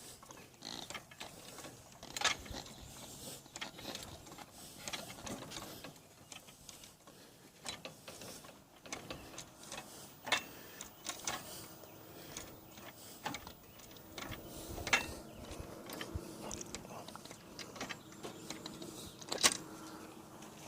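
Bottle jack on a riding-mower lift being pumped by its foot pedal to raise the mower: irregular mechanical clicks and creaks, with a few sharper metal clanks now and then.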